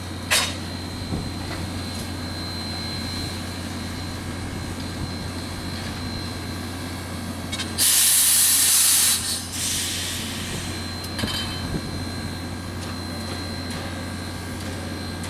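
Standing 2-8-2 Mikado steam locomotive venting steam over a steady low hum. There is a short hiss just after the start, then a loud hiss of about a second and a half around the middle, followed by a softer hiss and a brief puff.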